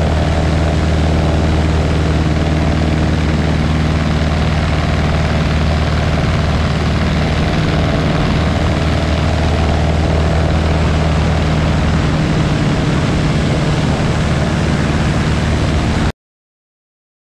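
Light aircraft's piston engine and propeller running steadily, cutting off abruptly near the end.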